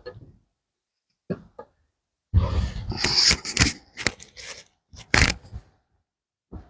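Irregular short knocks, scrapes and rustles separated by silence, with a dense cluster between about two and four seconds in and a last knock near the end.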